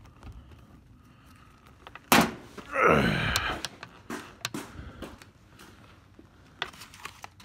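Handling and movement noise in a small room: a sharp thunk about two seconds in, then a drawn-out sound about a second long that falls in pitch, then light clicks and rattles as tools on a cluttered bench are picked through.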